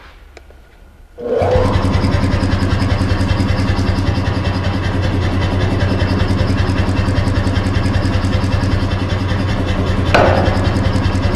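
Anyang self-contained power hammer started up for a test run after reassembly of its ram and stuffing box. The motor comes on about a second in with a brief rising whine. The machine then runs steadily with a fast, even pulsing, and there is a short, louder sound with a falling pitch about ten seconds in.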